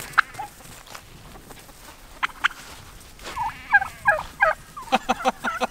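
Turkeys gobbling, stirred up by a dog chasing them: a few short calls in the first half, then a quick run of rattling gobbles from about halfway on.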